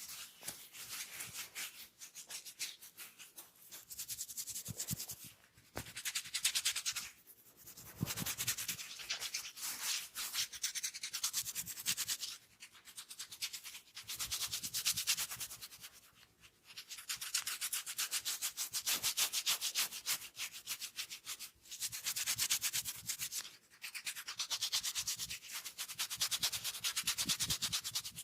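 Hands rubbing oiled skin in quick, rhythmic massage strokes, in bouts of a few seconds with short breaks between them.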